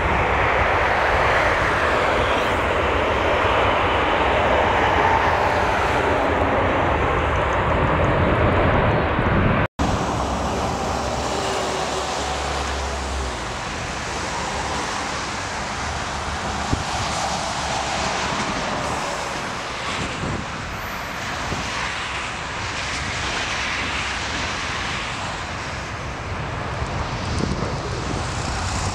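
Airbus A380 turbofan engines: a steady, loud jet roar from an A380 on the runway close by. After a sudden cut about ten seconds in, a second A380's engines run with a faint whine, first on approach and then on the runway after touchdown.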